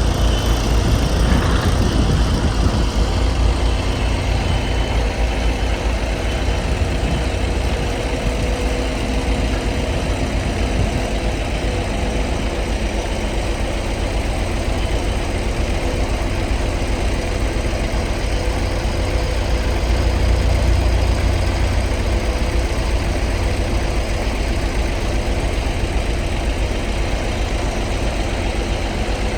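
11-ton, 84-inch-wide Bomag padfoot compactor running steadily: a deep, even engine drone that swells slightly about twenty seconds in.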